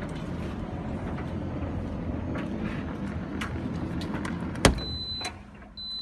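Candy GCC 590NB condenser tumble dryer running, a low rumble with light knocks from the tumbling load, then a loud click about four and a half seconds in as the door is pulled open, after which the running noise dies down.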